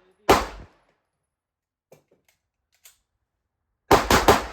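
Handgun fire at a range: a single shot just after the start, two faint clicks in the pause, then a quick string of four shots near the end.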